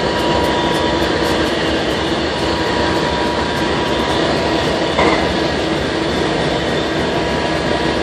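BNSF diesel-electric locomotives idling: a steady engine rumble with a constant hum, and one short sharp sound about five seconds in.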